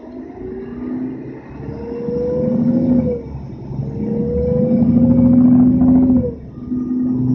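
Mercedes-Benz OM457 hLA straight-six diesel of a Citaro city bus accelerating, heard from inside the passenger cabin. The engine's pitch rises, drops about three seconds in, rises again and drops just after six seconds, as the ZF EcoMat automatic gearbox shifts up.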